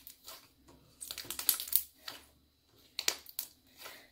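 Clear Elmer's glue slime being squeezed and pressed by hand, crunching with bursts of sharp crackling clicks, a dense cluster about a second in and another about three seconds in. The slime is stiff and crunchy because it is overactivated, as its maker thinks.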